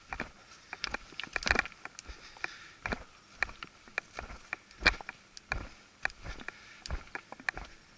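Footsteps crunching over stones and gravel, an uneven run of sharp crunches and clicks, a few each second.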